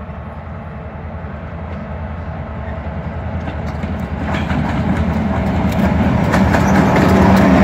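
EMD SD38-2 diesel locomotive, with a 16-cylinder roots-blown EMD 645 engine, approaching at the head of a loaded coal train, its low engine drone growing steadily louder. From about four seconds in, wheels click over the rail joints as the locomotive draws alongside.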